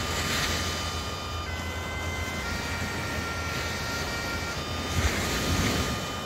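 Bagpipes playing a slow melody: held chanter notes step from pitch to pitch over the steady drones. Short bursts of rushing noise come near the start and again about five seconds in.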